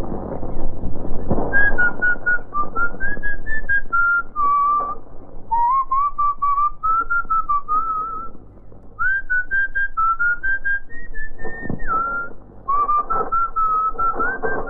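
A person whistling a slow, wandering tune, a run of short notes that slide up and down, with a couple of chain clanks.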